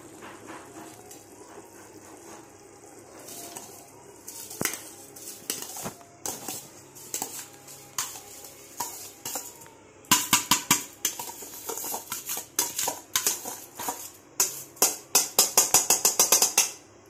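Rice being tipped from a steel vessel into a large aluminium pot of boiling biryani stock. The metal clinks and scrapes against the pot come sparsely at first, then grow into a loud, fast clatter of strokes over the last several seconds.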